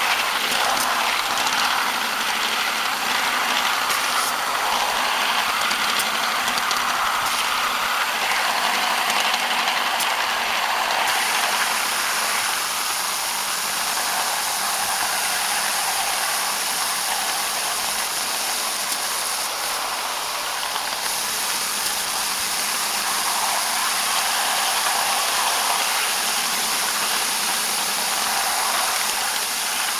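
Ride-on live steam miniature locomotive on the move: a steady steam hiss with running noise, and a few sharp clicks in the first ten seconds or so.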